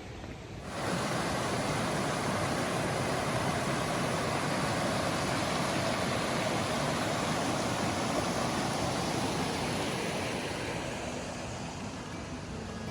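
Steady rushing of a mountain creek's flowing water, cutting in abruptly about a second in and easing slightly near the end.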